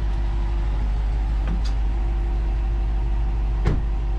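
2019 RAM 5500's 6.7-litre Cummins inline-six turbo-diesel idling steadily, with a short sharp knock near the end.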